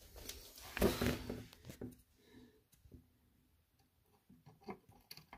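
Faint handling noises around an open desktop computer: a short rustle about a second in, then scattered light clicks and taps.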